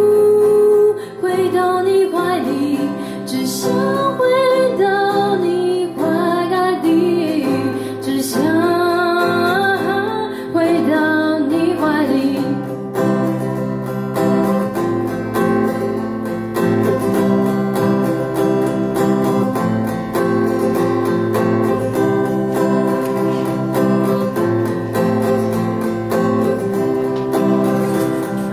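A woman singing with acoustic guitar accompaniment; about twelve seconds in the voice stops and the guitar plays on alone.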